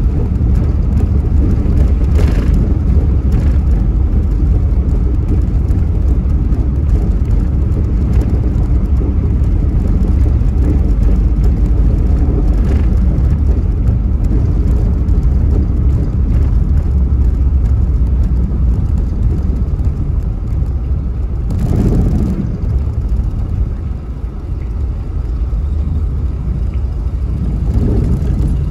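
Car driving on city streets: a steady low rumble of road and engine noise, with a brief louder swell about 22 seconds in.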